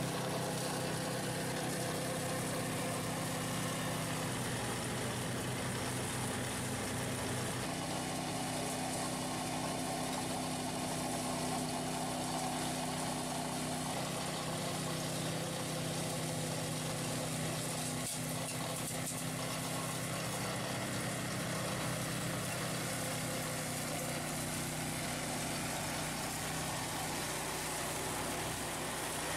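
Steady engine running from an ATV pushing a front-mounted RAMMY flail mower, whose own small petrol engine drives the cutter; the engine note shifts slightly a few times.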